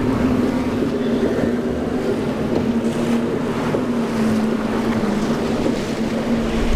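Yamaha outboard motor on a small Boston Whaler running at speed, a steady engine note that dips a little and comes back about two-thirds of the way through, over the rushing of the hull's spray and chop.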